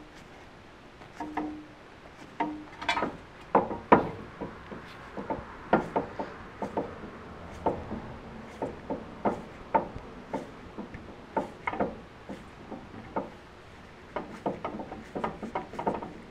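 Brake pad spreader being cranked to push a front brake caliper piston back into its bore, giving a run of irregular metal clicks and knocks a fraction of a second apart.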